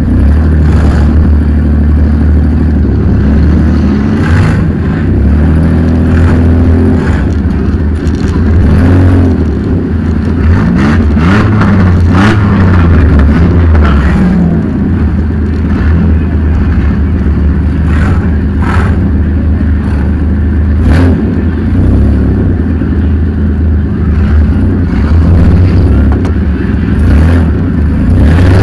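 Demolition derby van's engine running, heard from inside the cab, revving up and down several times as it pulls across the dirt arena, with scattered knocks and rattles from the stripped body.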